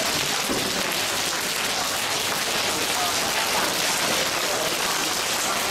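A large crowd slapping their own hands and arms in paida self-patting: a dense, steady mass of palm-on-skin slaps blurring together.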